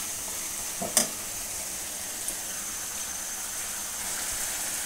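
Chicken and potato curry sizzling gently in a metal karahi on the stove, with a single spoon knock against the pan about a second in.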